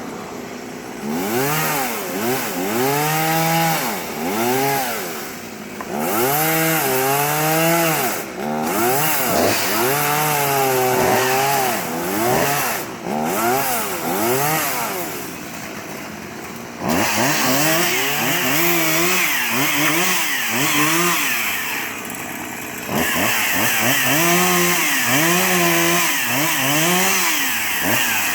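Chainsaw engine revved in repeated bursts, its pitch rising and falling about once a second, with longer stretches of cutting through wood.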